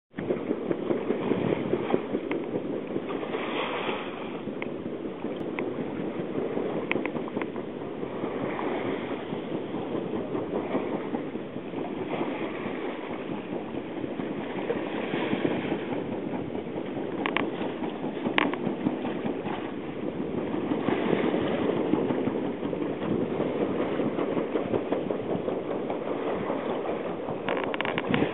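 Steady rush of wind and sea at the masthead of a schooner under sail, with a couple of sharp clicks a little past halfway.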